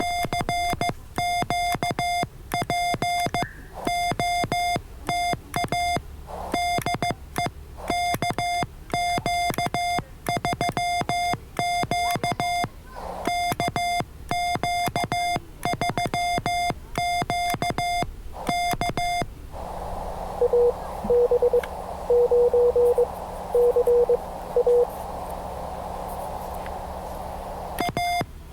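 Morse code (CW) from an amateur radio transceiver: a CQ call keyed on the steady beep of the sidetone in dots and dashes. After about 19 seconds the keying stops and receiver static comes up, with another station's lower-pitched Morse code answering in a few short groups. The sidetone keying starts again near the end.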